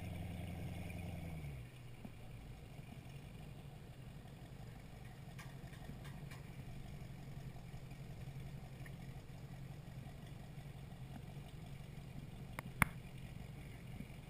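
Motorboat engine running slowly on the water. About a second and a half in, its note drops back to a quieter, steady low hum as the throttle comes off. A single sharp click near the end.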